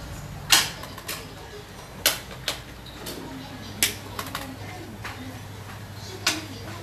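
Irregular sharp clicks and taps, about eight over several seconds, the loudest about half a second in, over a low steady hum.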